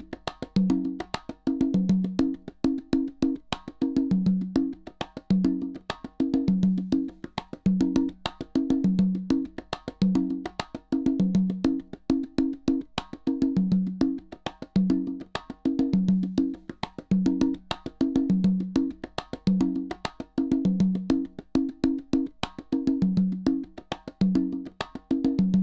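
Looping percussion test signal for matching the centre speaker's level against the left and right speakers: rapid, sharp wood-block-like clicks over low pitched knocks, the pattern repeating about every two and a half seconds.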